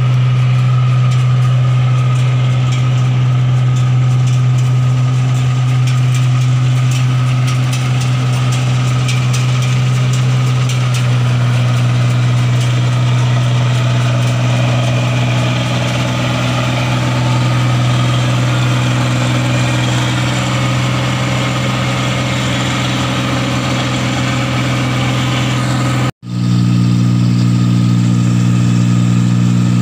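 New Holland 8070 rice combine harvester running steadily while it cuts paddy, a loud constant engine drone with a strong low hum. Near the end the sound breaks off for a moment and comes back heard from on board the machine, above the cutting header.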